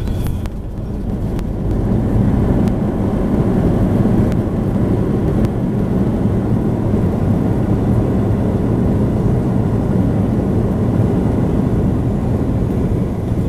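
Airbus A320-214's CFM56 engines and rushing airflow heard from inside the cabin as a loud, steady rumble, building over the first couple of seconds and then holding.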